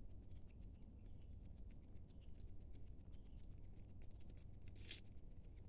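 Faint high-pitched insect chirping in a fast, steady pulse, about six chirps a second, with soft scattered ticks of ducklings pecking at rice grains in the dirt; one sharper tick near the end.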